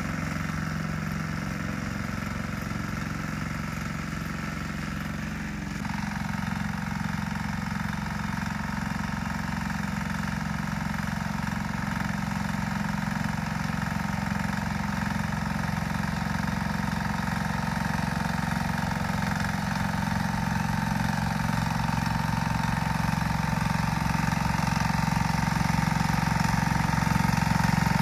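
Single-cylinder-type engine of a Grillo G110 two-wheel walk-behind tractor running steadily while its rotary tiller works the soil. The note shifts slightly about six seconds in and grows louder toward the end.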